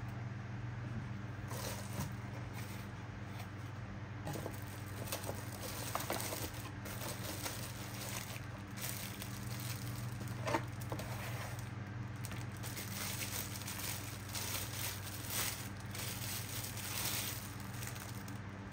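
Clear plastic packaging bag crinkling and rustling in irregular handfuls as a white desk lamp is lifted out of its cardboard box and slid out of the bag, with one sharper crackle about halfway through. A steady low hum sits underneath.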